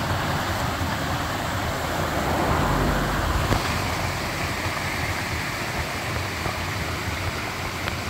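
Water gushing steadily out of a channel outlet and splashing into a net fish trap: a constant rushing splash.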